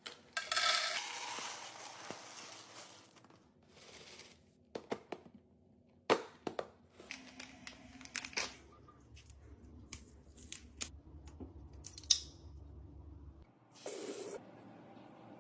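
Packaging being torn open and crinkled, followed by scattered clicks and knocks of items being handled and set down.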